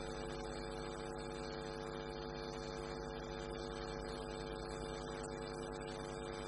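Steady electrical mains hum with a stack of buzzing overtones, unchanging in pitch and level.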